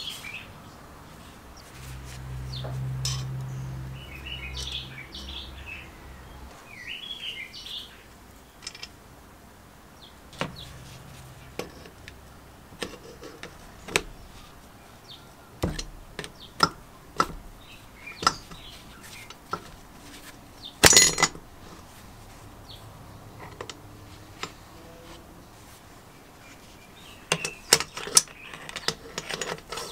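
Scattered metal clinks, taps and scrapes of a screwdriver and wrench on the connecting-rod cap screws inside a vintage Speedy Sprayer air compressor's crankcase during disassembly, with one louder clank about two-thirds of the way through. Birds chirp in the first several seconds, over a low hum.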